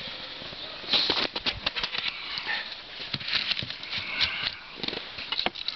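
Irregular scraping, rubbing and light knocks as a polyurethane hive lid is slid back onto a beehive over its clear inner cover, with a burst of scraping about a second in and more between three and four and a half seconds in.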